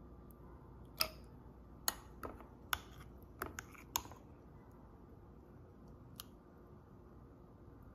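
Metal spoon clinking against glass while scooping syrupy diced fruit from a glass jar: a quick run of sharp clinks over the first four seconds, then one more a couple of seconds later.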